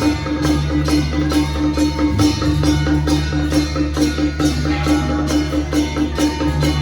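Loud music with a steady percussion beat, about three strikes a second, over a sustained low bass.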